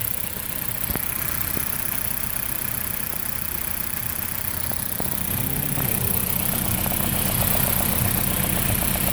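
2008 Dodge Caliber four-cylinder engine idling roughly with a misfire that new spark plugs have not cured, shaking the engine and exhaust downpipe; the owner suspects the ignition coils. A slightly higher hum joins the idle about five seconds in.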